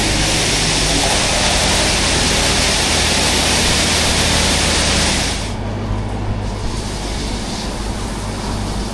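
High-pressure water spray of a touchless car wash hitting the car, heard from inside the cabin as a loud steady hiss over a low hum. It cuts off about five and a half seconds in, leaving a lighter hiss.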